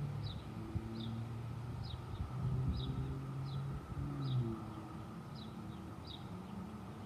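A bird repeating a short, high, falling chirp about every two-thirds of a second, over the low hum of a vehicle engine that swells around the middle and then fades.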